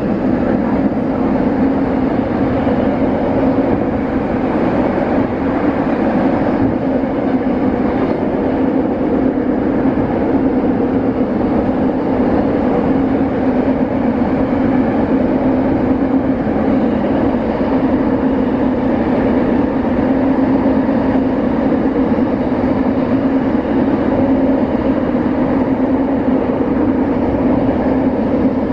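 Saitama Railway 2000 series electric train running through a tunnel, heard from inside the front car: a steady, even rumble of wheels and running gear with a held low hum.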